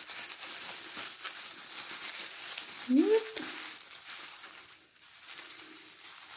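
Bubble wrap crinkling and rustling as it is handled and pulled open by hand. About halfway through there is a short rising hum from a person's voice.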